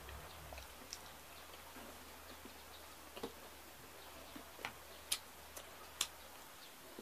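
Close-up eating by hand: quiet at first, then about five short, sharp smacks and clicks in the second half from chewing and fingers picking at food on a plate.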